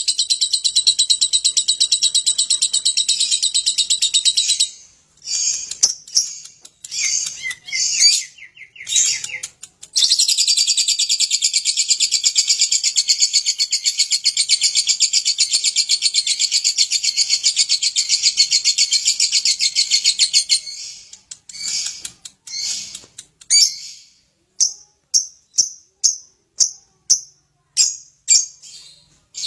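Lovebird singing its long 'ngekek' chatter: a rapid, unbroken, high trill held for about four seconds, then broken chirping, then another unbroken trill of about ten seconds. Near the end it breaks into short sharp chirps about twice a second.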